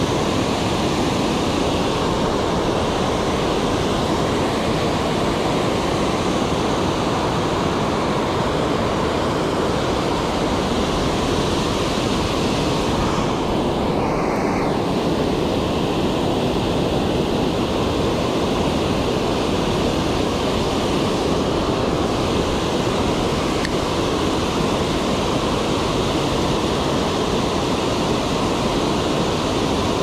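Water pouring over a low concrete spillway dam: a steady, even rushing.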